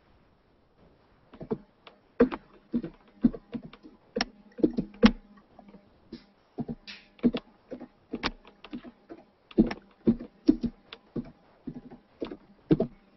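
Irregular taps and knocks, two or three a second, close to the microphone, over a faint steady hum.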